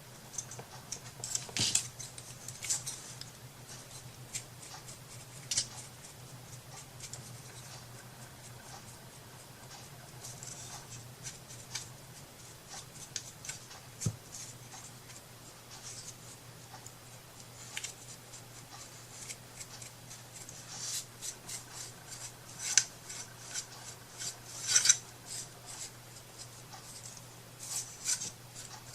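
Intermittent scratching, rubbing and snipping sounds of hand craft work on paper and small wooden pieces, in short clusters that are busiest near the start and again toward the end, over a steady low hum.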